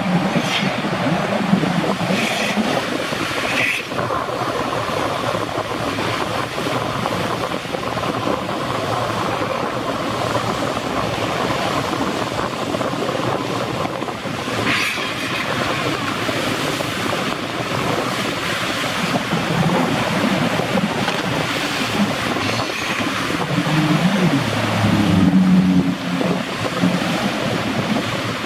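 Jet ski engines running and revving over rough wake water, with steady splashing and wind on the microphone. A pitched engine note comes and goes, strongest in the last few seconds.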